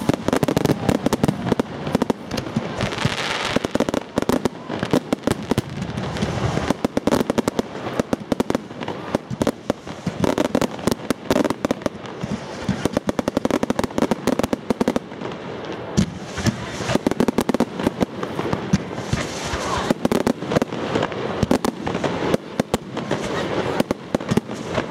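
Fireworks display: a dense, unbroken run of bangs and crackles.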